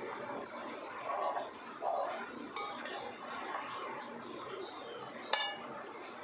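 A perforated steel spatula stirs and tosses grated carrots being sautéed in ghee in a kadhai: soft scraping with a few sharp metal clinks against the pan, the loudest a little after five seconds.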